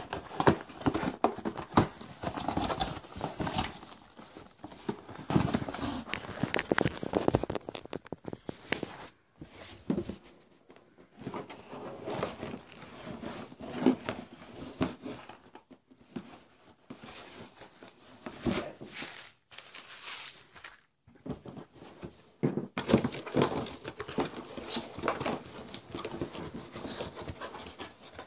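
Cardboard laptop box and its packing being handled and opened: irregular rustling, crinkling and tearing with sharp clicks and knocks, coming in spells with short pauses.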